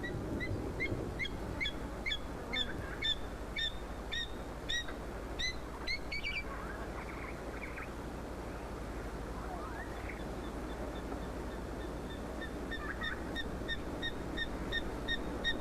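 A bird calling in two long series of short, repeated, pitched notes, about three a second: one in the first half, another from about two-thirds of the way through, over a steady background hiss.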